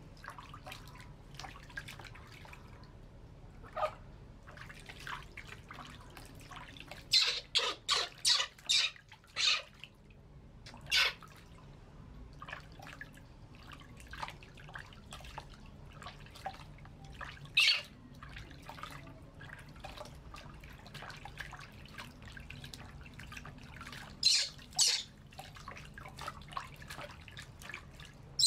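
Hand-poured water trickling and splashing in a plastic basin while a baby monkey is bathed, broken by short, shrill monkey squeals: a quick run of about six some seven seconds in, then single squeals and a pair later on.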